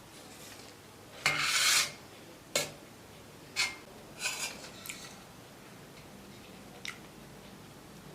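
Cutlery scraping across a plate of fried rice and noodles, one loud scrape followed by several short clinks and taps against the dish.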